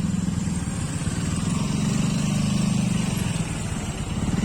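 Motor scooter engine running steadily while being ridden, its note dipping slightly near the end.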